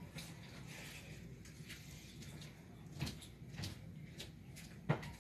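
Quiet room with a steady low hum, broken by a few faint clicks and two short knocks, one about three seconds in and a sharper one near the end.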